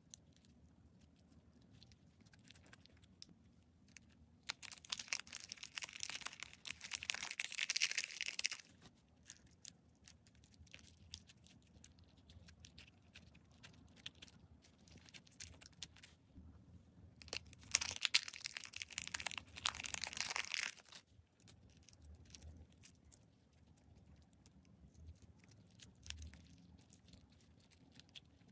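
Slime being squeezed and worked by hand: scattered small sticky clicks, with two louder stretches of dense crackling, one about five seconds in lasting some four seconds and another about eighteen seconds in lasting some three seconds.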